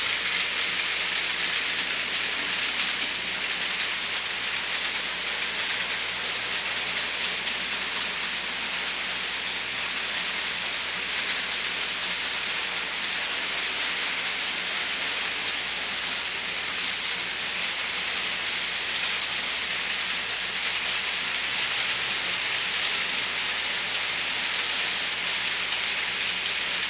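Model trains running on the layout track: a steady fine rattling hiss of small wheels on rail joints and the locomotive motors' whir, unchanging throughout.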